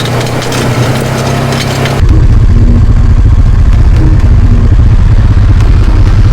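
Polaris RZR 570 side-by-side's single-cylinder engine running at low speed on a rough track, with rattling. About two seconds in, the sound jumps suddenly to a louder, deeper, steady drone.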